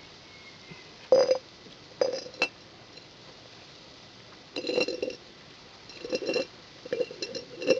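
Glass jar clinking and knocking against concrete as it is set down and shifted: a few single sharp clinks in the first half, then several short rattling clusters of clinks in the second half.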